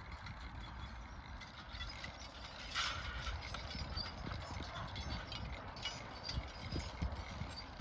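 Percheron draft horses' hooves clopping irregularly as they walk.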